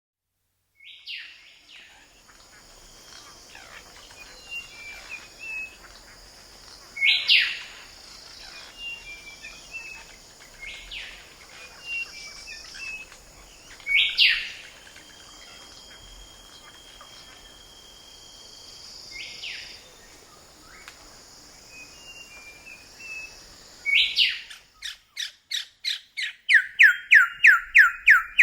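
Wild birds calling and singing: loud, sharp down-slurred calls about every seven seconds among softer chirps over a steady high hiss, then, about 24 seconds in, a fast series of descending notes, about three a second, growing louder.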